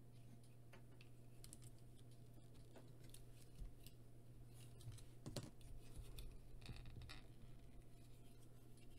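Faint clicks and taps of a plastic Transformers action figure's parts being handled and pressed together, with a slightly sharper click a little past halfway, over a low steady hum.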